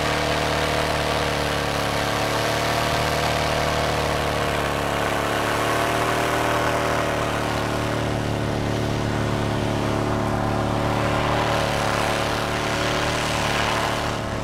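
A 4x4's engine running at steady, slightly wavering revs as the truck pushes slowly through deep snow.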